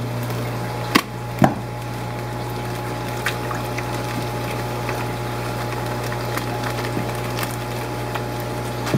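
Steady hum and running-water noise of aquarium pumps and filters circulating water, with two sharp knocks about a second in.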